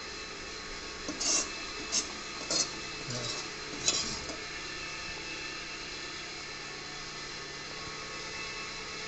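Stainless steel ladle clinking against a steel bowl about five times while curry is served, then only a steady background hiss.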